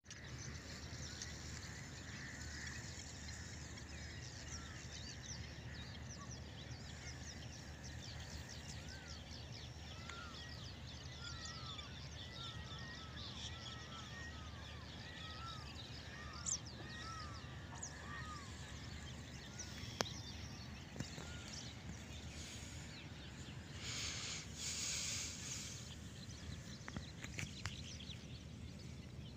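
Open-field ambience: many small birds chirping and calling in quick, scattered notes over a steady low rumble. A couple of sharp clicks come in the middle, and a brief rustling burst follows about 24 seconds in.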